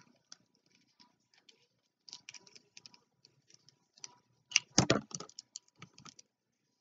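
Crinkling and crackling of a toy's plastic blind-bag wrapper being opened and handled, in scattered small clicks, with a louder burst of rustling about four and a half seconds in.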